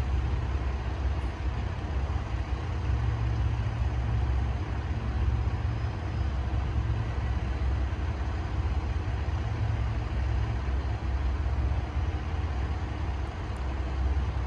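Diesel railcar engine idling at a standstill: a steady low rumble that swells and eases a little.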